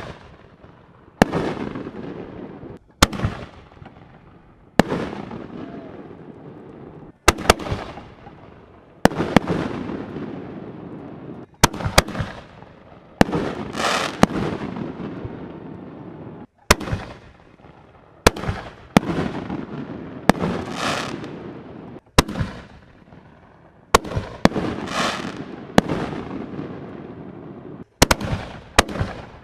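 Aerial fireworks going off one after another: a sharp bang about every one and a half to two seconds, each followed by a fading hiss and crackle as the burst burns out, with a few shots coming in quick pairs.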